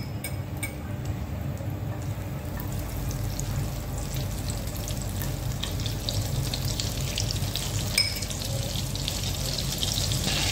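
Butter melting in hot oil in a nonstick frying pan, a sizzle with fine crackling that builds steadily as the fat starts to foam and bubble. A few light clinks near the start and one about eight seconds in.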